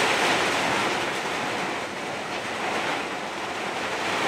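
Gusty storm wind with light rain, a steady rushing hiss that eases off around the middle and builds again near the end.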